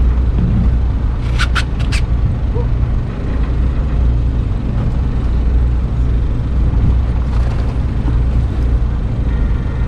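Fishing boat's engine running with a steady low drone under wind and water noise. A quick run of four sharp clicks comes about a second and a half in.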